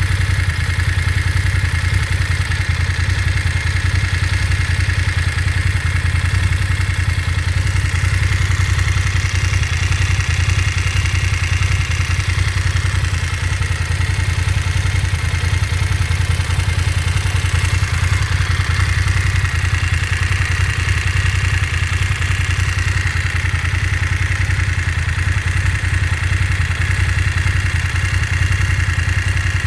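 BMW F 750 GS motorcycle's parallel-twin engine running steadily at one speed, with no revving.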